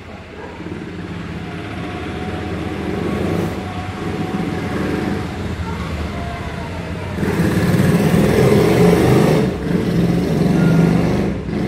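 Steady low mechanical rumble, louder from about seven seconds in.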